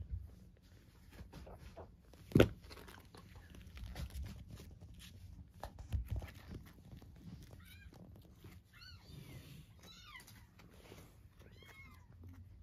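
Very young kitten mewing in thin, high peeps, in about four short bouts in the second half. A single sharp knock about two seconds in, with faint scuffing of handling.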